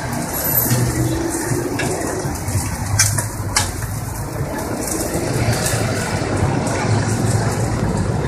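Busy street noise: a steady din of engines and traffic, with two sharp clinks about three seconds in.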